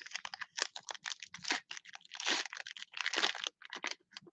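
Foil-and-plastic wrapper of a Panini Mosaic football-card pack being torn open and crinkled between the fingers: an irregular run of crackles.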